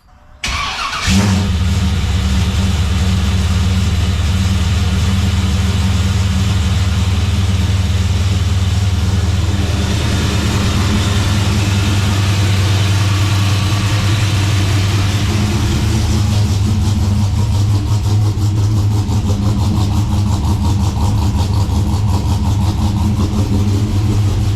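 LS1 V8 cranking briefly and catching on its first start after being refitted with CNC-ported heads, then running at a steady, somewhat high idle.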